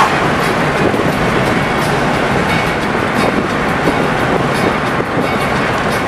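Steady road noise heard from inside a moving car's cabin: tyres rolling on asphalt and the engine running at cruising speed.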